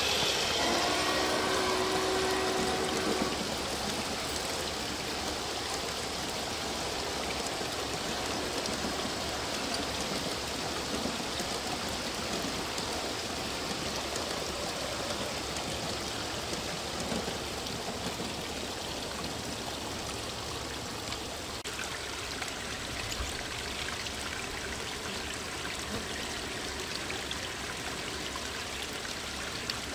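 Small garden-pond waterfall trickling and splashing steadily. For the first three seconds the chime whistle of a G-scale FEF-3 steam locomotive's sound decoder is still sounding, then it stops.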